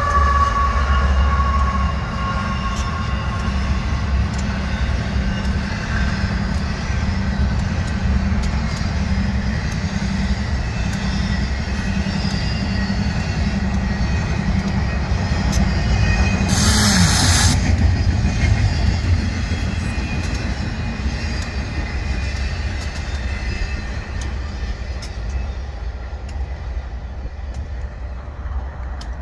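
Union Pacific diesel freight train rolling past with a steady low rumble of locomotives and railcars, and faint wheel squeal in the first couple of seconds. About seventeen seconds in there is a sharp burst of hiss lasting about a second. The rumble fades slowly toward the end.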